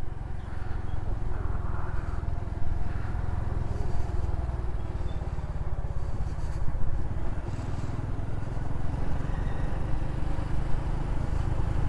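Honda Pop 110i's small single-cylinder four-stroke engine running steadily as the motorcycle is ridden, a low, even putter with road noise over it.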